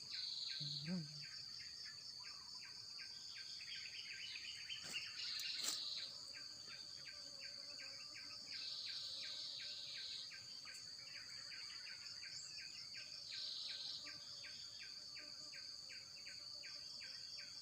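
A chorus of insects: one calls in a steady high trill, another in bursts of about a second every three to four seconds, over a fast series of short chirps repeating about three times a second.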